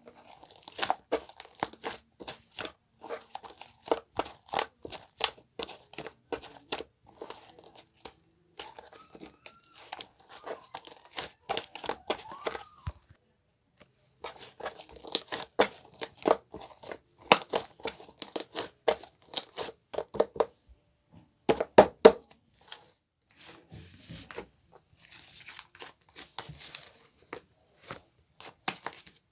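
Dense crackling, crinkling and tearing sounds of material being handled, in quick runs of sharp crackles, with the loudest ones about 21 to 22 seconds in.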